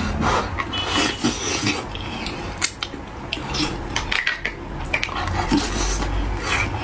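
Close-miked eating sounds: a metal spoon clicking and scraping against a plastic scoop and bowl, with wet slurping and chewing of braised pig brain in spicy broth. Many short clicks and smacks, scattered irregularly.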